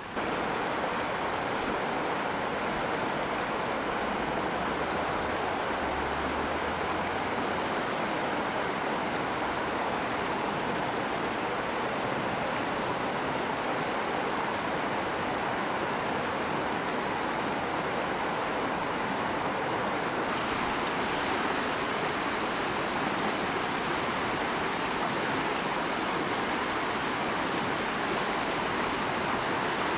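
Steady noise of river water flowing, an even rush with no bird calls heard over it.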